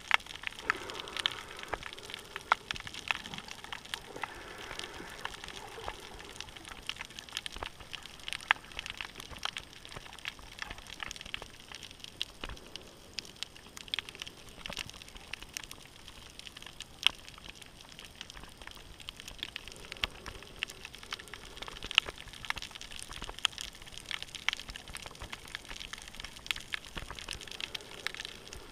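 Underwater crackling of a coral reef: a dense, steady fizz of sharp clicks and pops, heard through a camera's waterproof housing.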